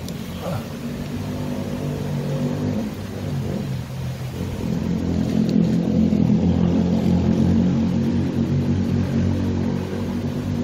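An engine running steadily with a low hum, growing louder about halfway through.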